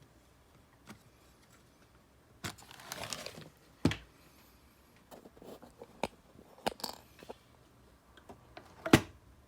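Clicks, snaps and light rattling from handling a Graflex Super D 4x5 reflex camera as it is opened up: a scattering of separate clicks with a short rustle about three seconds in, and the sharpest click near the end.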